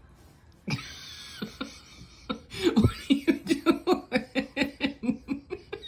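Rapid rhythmic laughter, about five short pulses a second, starting a little past two seconds in, after a breathy hiss.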